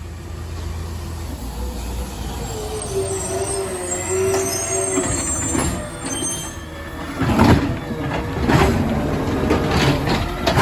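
Automated side-loader garbage truck: the engine runs under a wavering hydraulic whine, then a series of loud clunks and bangs from about seven seconds in as the arm works a cart.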